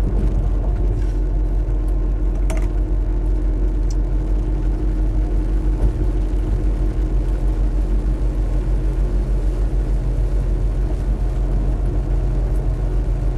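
Steady low rumble of a car driving at highway speed, heard from inside the cabin: engine and road noise.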